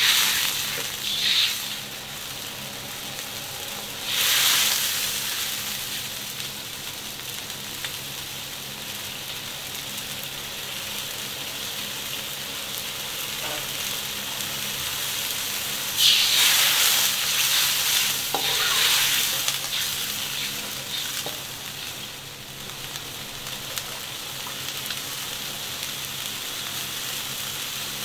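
Chili-oil broth sizzling and bubbling in a wok, stirred now and then with a metal ladle. The sizzle swells louder a few times, briefly about four seconds in and again for several seconds a little past the middle.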